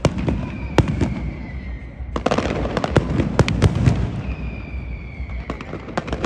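Aerial fireworks shells bursting, with sharp bangs and crackling and a rapid cluster of cracks from about two seconds in. A thin high whistle drifts slightly downward twice.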